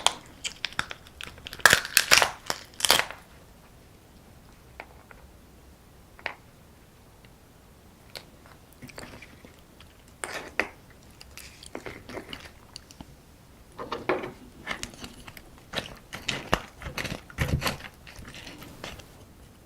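Close-up eating of soy-sauce-marinated raw crab: bites and chewing with crunching of the shell. The loudest crunching comes in a burst about two seconds in, then a few quiet seconds, then more bursts of biting and chewing in the second half.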